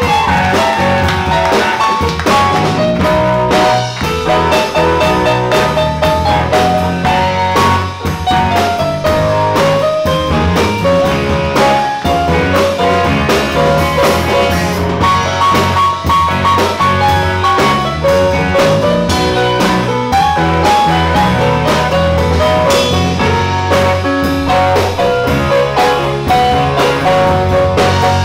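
Live band music with a steady rock beat: an electric keyboard played over electric bass and a drum kit, with no singing heard.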